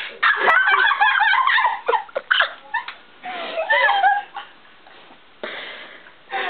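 A sharp smack about half a second in, followed by young women giggling and laughing in high-pitched, wavering bursts.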